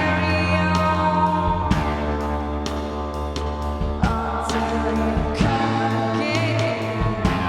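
Rock music: a band playing with sustained chords over steady bass and regular drum hits, with singing or choir-like vocals.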